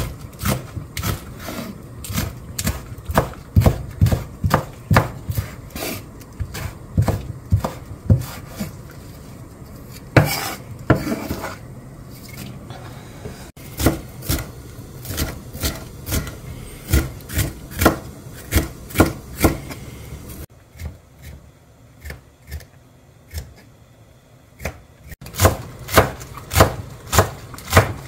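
Chef's knife chopping crisp vegetables (green onion, red bell pepper, leaf lettuce) on a wooden cutting board: quick, regular blade strikes on the board at about three a second, in a few separate runs, quieter for a while before louder strokes near the end.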